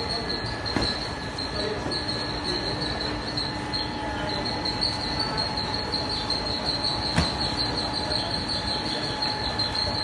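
Belt conveyors running steadily, a continuous mechanical hum with a high-pitched whine over it. Two sharp knocks stand out, one near the start and one about seven seconds in.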